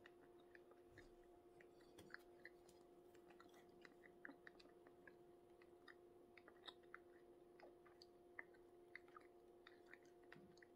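Near silence: faint chewing and scattered small mouth and table clicks over a low steady hum.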